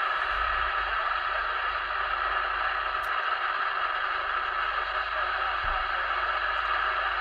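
Steady loud hiss of interference from a CB radio's speaker, the channel swamped by electrical noise, which the owner puts down to a nearby car that has just started up.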